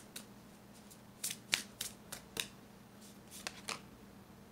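Tarot cards being handled on a table: a scattered series of short, crisp clicks and flicks, about eight in all, over a faint steady low hum.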